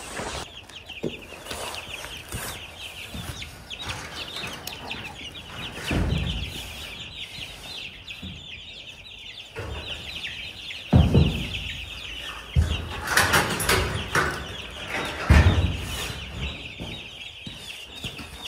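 Many baby chicks peeping together in a steady high chatter. Several dull thumps and a burst of rustling from handling or movement come through it, the loudest about halfway through and again a few seconds before the end.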